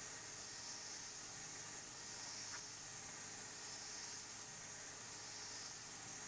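Tormach 770M CNC mill boring out a bearing hole in a tellurium-copper blank: a steady, faint hiss that swells and eases every second or two, over a low hum.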